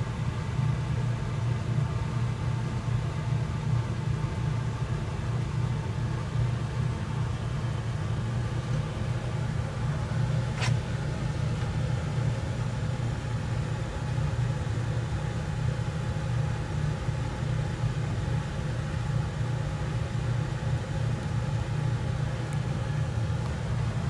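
LG system air conditioner outdoor unit (LRP-N2908M2) running with its service panel open: a steady low machine hum with faint steady tones above it. A single sharp click comes about ten and a half seconds in.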